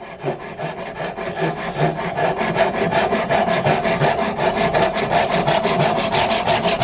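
Handsaw cutting through a wooden board held in a bench vise, in steady back-and-forth strokes that get stronger after the first second.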